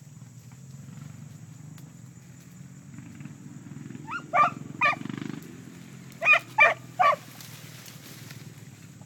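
Beagle hounds giving five short barks while running a rabbit, two together and then three in quick succession about two seconds later, over a steady low hum.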